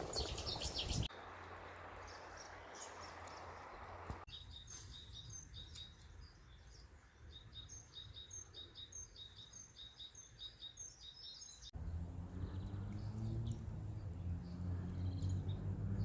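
Small birds singing outdoors, a quick run of many short high chirps, between hard cuts. In the last few seconds a louder low hum rises slowly in pitch.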